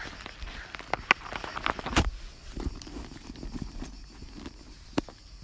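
Handling noise from a handheld phone being moved about close to the body: irregular rubbing and a few sharp knocks, the loudest about two seconds in and another near the end, over a low rumble.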